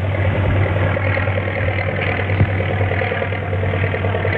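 Airplane piston engine droning steadily overhead, with a fast, even pulsing beat: the skywriting plane.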